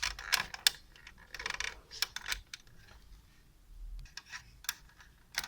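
Plastic parts of an HP L1706 monitor stand clicking and scraping in short bunches of clicks as the stand's release is pinched and the part is pushed forward off the base.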